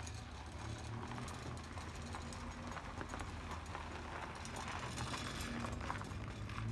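A 1991 Toyota Corolla driving off slowly across loose gravel: a low, steady engine hum with many small crunching clicks of stones under the tyres.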